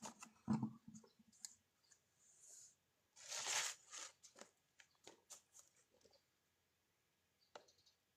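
Faint scattered clicks and rustles of something being handled, with one longer rustle about three seconds in.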